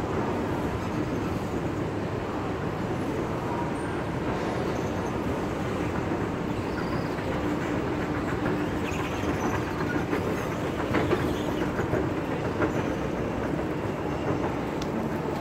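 Escalator running while being ridden: a steady mechanical hum with a faint low tone, and a run of light clicks and knocks around the middle.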